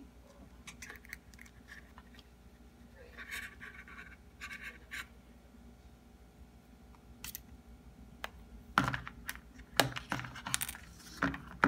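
Close handling noise of an iPhone and its SIM card tray: light scratching and rustling of fingers on the phone and tray, then a few louder knocks and clicks in the last few seconds as the phone is handled against the table.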